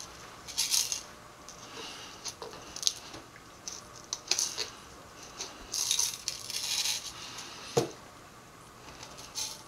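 Bottles, containers and a utensil clinking and rattling on a work table while hair-oil bottles are being filled, with short rustling spells in between. One sharper knock with a brief ring comes about eight seconds in.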